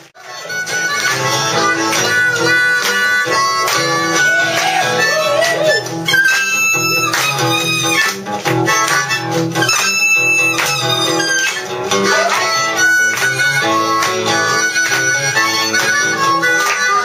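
Live harmonica solo, the harmonica cupped in the hands together with a handheld microphone, with guitar accompaniment. The music starts suddenly and runs on without a break.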